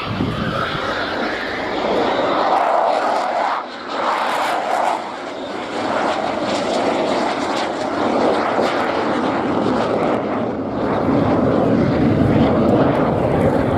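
Jet noise of a Eurofighter Typhoon in flight, from its two EJ200 turbofan engines. It dips briefly about four seconds in and grows louder and deeper over the last few seconds.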